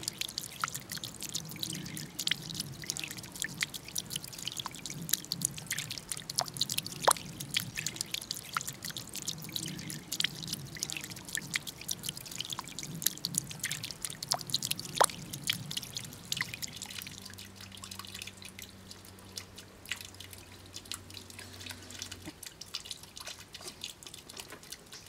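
Water from a carved bamboo fountain spout falling back into a pond: a busy run of drips and plops, some with a quick drop in pitch, thinning out over the last several seconds.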